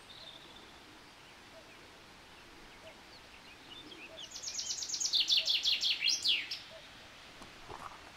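A small songbird sings one loud phrase of rapid, descending high notes lasting about two seconds, over faint scattered chirps and a steady background hiss.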